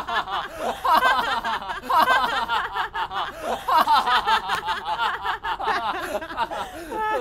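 A man laughing loudly for several seconds, one long run of quick, evenly repeated bursts of laughter.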